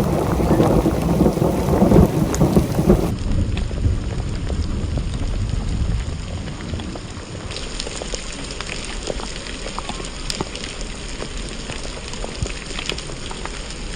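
Thunder rumbles low for about the first three seconds; then steady rain falls, with raindrops tapping close by.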